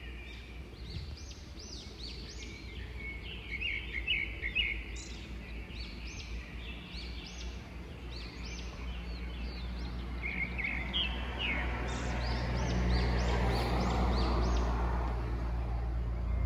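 Birds chirping, many short high notes in repeated quick series, over a steady low background rumble that grows louder from about ten seconds in.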